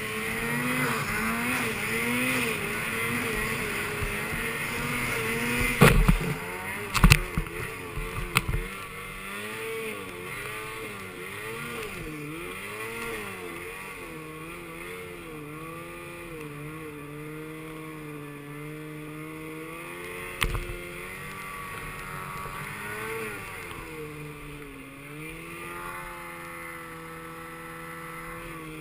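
Snowmobile engine running through deep powder, its pitch rising and falling with the throttle. Several sharp knocks cut in about six to eight seconds in and once more about twenty seconds in.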